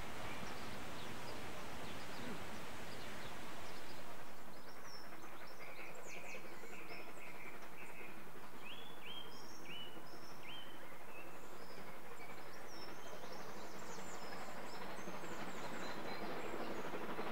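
Small birds chirping in many short, repeated notes for most of the stretch, over a steady rushing background noise.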